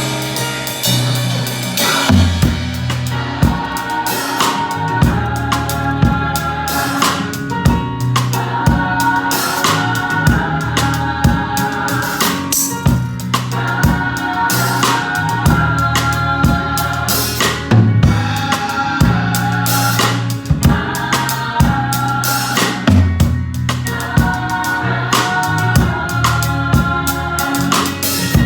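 Music with a live drum kit playing a steady beat of bass drum, snare and rimshots over bass notes and held chords.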